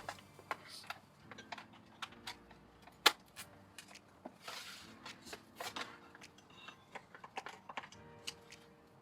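Scattered light clicks and taps of hands handling a power cord and the opened iMac's parts, with one sharper knock about three seconds in.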